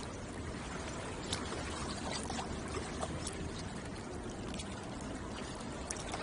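Water lapping and splashing at a shoreline: a steady wash with many small splashes and drips scattered through it.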